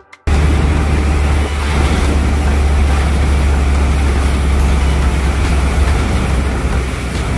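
Open-sided tour truck driving along a road: a steady low engine rumble under loud wind and road noise, cutting in suddenly just after the start.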